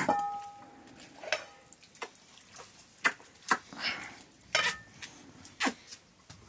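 Metal serving utensils clinking against a wok and steel plates as food is dished out: about seven sharp, scattered clinks, the first near the start ringing briefly.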